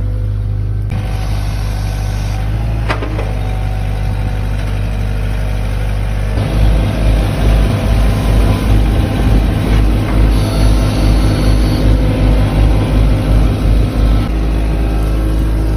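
Excavator engine running steadily. From about six seconds in it throbs in a rapid low pulse for about eight seconds, then settles back to a steady run. A single click comes about three seconds in.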